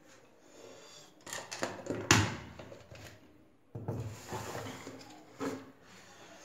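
Several knocks and bumps with some rubbing in between, the loudest sharp knock about two seconds in and another cluster of bumps near the middle: household handling sounds, like a cupboard or drawer being shut.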